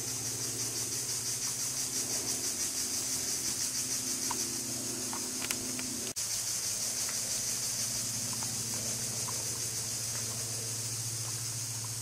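A steady, high-pitched insect chorus with a fast pulse, over a low steady hum. A few faint short chirps come around the middle, and the sound cuts out for an instant about six seconds in.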